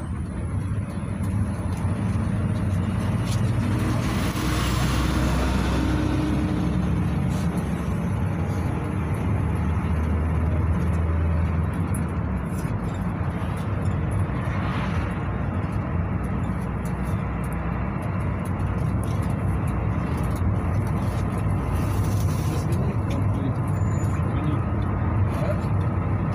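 Cabin noise inside a moving GAZelle Next minibus: its Evotech engine running steadily, with tyres on the road. There are brief louder rushes of noise a few seconds in and about halfway through.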